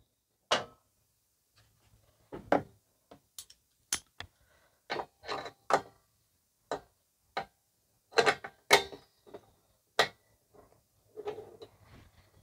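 Irregular metallic clicks and clinks of a 16 mm magnetic spark plug socket, extension and ratchet handled and seated on a lawn mower's spark plug, with a quick cluster of clicks about eight seconds in.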